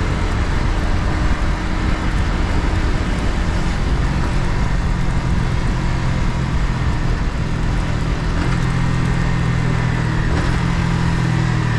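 Yamaha MT-15's single-cylinder engine running at a steady cruise on the road, its note shifting slightly a few times, with a constant rush of wind and road noise.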